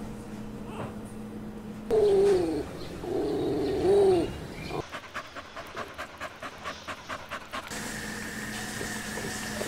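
A puppy whining twice, a short falling whine and then a longer wavering one, followed by quick rhythmic panting at about four to five breaths a second.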